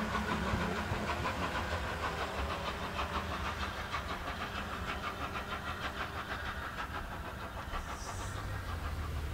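Gresley A3 Pacific Flying Scotsman, a three-cylinder steam locomotive, working hard with a rapid, even beat from its exhaust; near the end the beat fades and a steady low rumble takes over.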